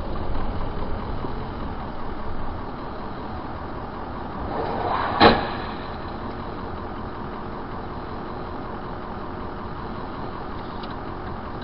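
Steady car engine and road noise heard from inside a car through a dashcam. About five seconds in a noise swells briefly, then comes one sharp crash as an SUV collides with another car.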